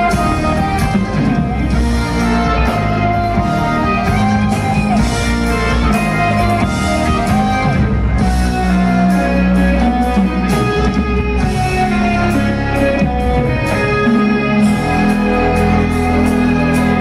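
Live progressive rock band playing loud and without a break: electric guitar lines over bass guitar and drums.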